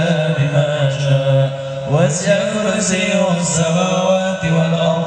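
A man's voice chanting a religious recitation over a PA loudspeaker system, in long held notes, with a rising glide about two seconds in.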